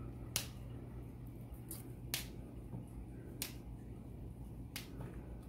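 Fresh broccoli florets snapped off the head by hand: about five sharp snaps, a second or so apart.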